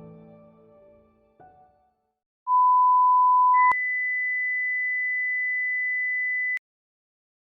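Background music dies away in the first second and a half. After a short silence a pure, steady electronic beep tone holds for just over a second, then jumps an octave higher and holds for about three seconds before cutting off suddenly.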